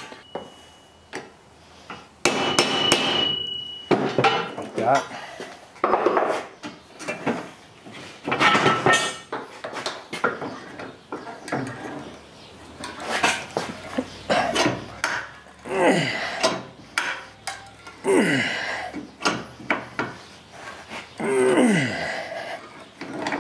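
Irregular metal knocks and clanks at a cast-iron bench vise as a copper ring lug is crimped onto heavy battery cable, with a few short falling squeaks late on.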